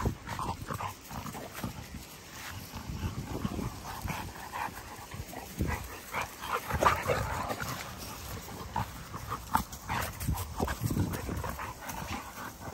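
American Bully dogs play-wrestling on grass: irregular short dog vocal sounds mixed with scuffling, busiest around the middle.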